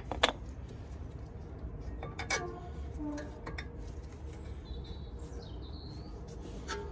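Sharp metal clicks and knocks as new Brembo brake pads are pushed into the spring clips of a TRW caliper carrier, the loudest pair right at the start and another about two seconds in. A bird chirps once about five seconds in.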